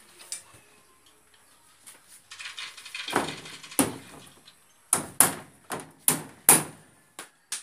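Hammer blows on a wooden wall panel during house carpentry: about eight sharp strikes at an uneven pace, starting around three seconds in.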